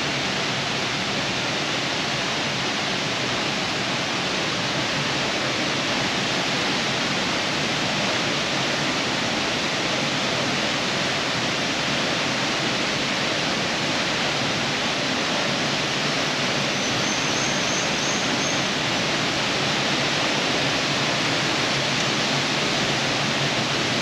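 Waterfall and river rushing below: a steady, even hiss of falling and flowing water.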